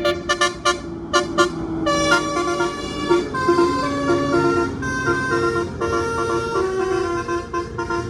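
A bus's musical 'telolet basuri' horn playing a tune: a run of quick short toots, then longer held notes at changing pitches.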